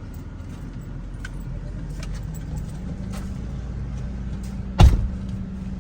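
Car running, heard from inside: a steady low rumble and engine hum with light rattling, and one loud thump about five seconds in.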